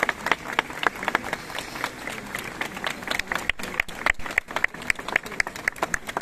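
Crowd applauding, a dense run of irregular hand claps with single sharp claps standing out.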